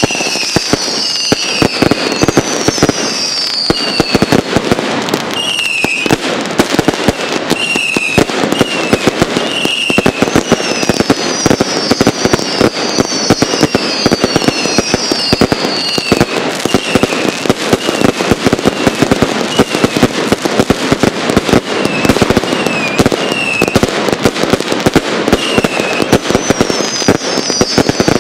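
Fireworks display: dense, continuous crackling and popping of bursting shells and crackling stars, with short falling whistles repeating through it.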